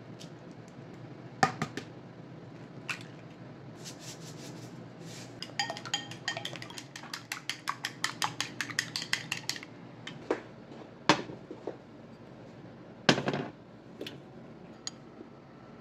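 A few sharp taps as eggs are cracked over a ceramic bowl. Then wooden chopsticks beat the eggs in the bowl, clinking quickly and repeatedly against the ceramic with a light ring. Near the end come a few separate louder knocks and clacks of cookware.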